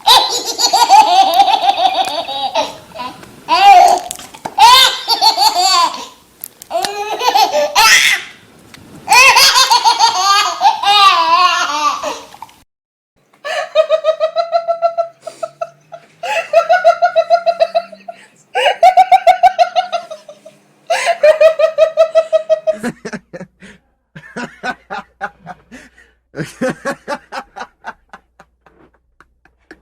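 Human laughter in a run of different styles. First come bouts of high, wavering laughter, then four bouts of rhythmic ha-ha-ha laughter on a steady pitch, and near the end a quicker, lower, pulsing chuckle.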